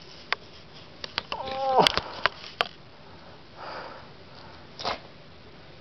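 A few sharp clicks and knocks, with a short voice-like cry falling in pitch about a second and a half in and a soft breathy sniff near the middle.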